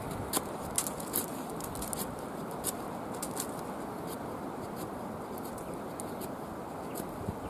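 Small fixed-blade knife with a Scandi grind whittling a half-dried pine stick: short, sharp scraping cuts, several in quick succession in the first three and a half seconds, fewer after.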